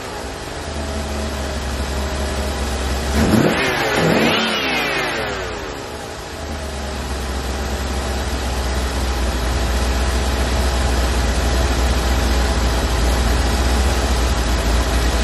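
C4 Corvette's tuned-port-injected V8 idling, revved up and back down twice in quick succession about three seconds in, then settling back to a steady idle. The idle is being checked after a throttle position sensor adjustment.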